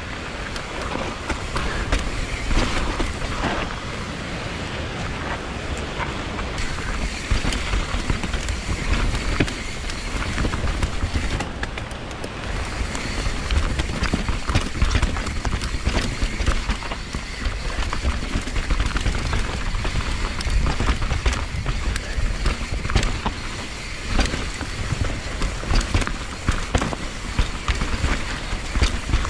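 Mountain bike riding fast down a dirt trail: continuous wind rumble on the microphone, tyre noise on dirt and rock, and frequent rattles and knocks from the bike over rough ground.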